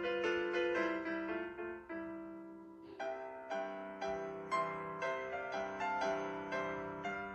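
Piano music: notes and chords struck in a flowing pattern, each one ringing and fading. Around two seconds in the playing rests on a held chord that dies away, then picks up again about a second later.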